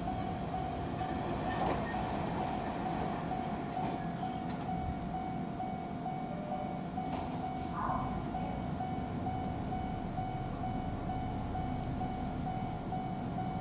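Kobe Electric Railway (Shintetsu) Ao Line train, a steady rumble with a thin high tone running through it and a few short clicks.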